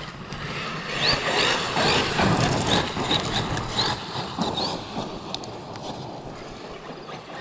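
Electric RC monster truck running over gravel. Its motor gives a series of short rising whines as the throttle is blipped, over a rush of tyre noise. It grows fainter as the truck gets farther away.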